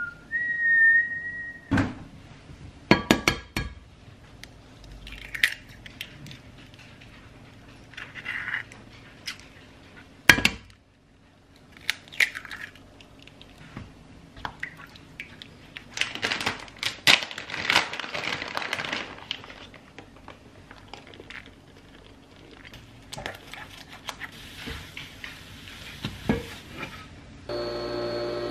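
Cooking eggs in a stainless frying pan on a glass cooktop: a short two-note electronic beep at the start, then clinks and knocks of eggs cracked on the pan and a silicone spatula scraping and stirring in the pan. About a second before the end a Nespresso coffee machine starts its steady humming as it brews.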